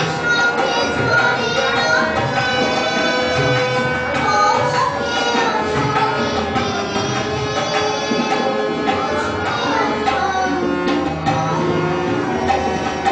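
Harmonium and tabla playing together: held, reedy harmonium notes over a run of tabla strokes.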